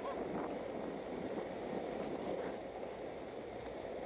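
Skateboard wheels rolling over street pavement: a steady, rough rolling noise.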